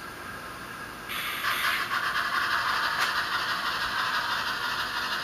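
Tsunami sound decoder in an HO-scale Bachmann geared steam locomotive model playing a steam hiss through its small speaker. The hiss starts loudly about a second in and keeps going.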